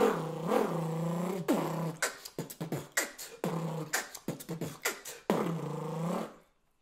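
Beatboxer imitating a motor vehicle with his voice: a buzzing engine-like drone that bends up and down in pitch, then a string of quick mouth pops and clicks, then a second drone that cuts off shortly before the end.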